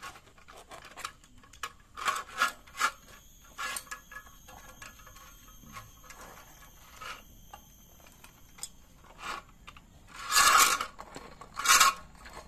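Steel wire cable of a manual hand winch (come-along) being pulled out and handled: scattered rubbing and scraping with light metallic clicks, and two louder scrapes near the end.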